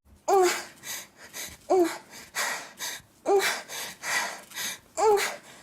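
A woman with allergic rhinitis gasping "ah" four times, about a second and a half apart, with short noisy breaths between: the breathing build-up before a sneeze. The first gasp is the loudest.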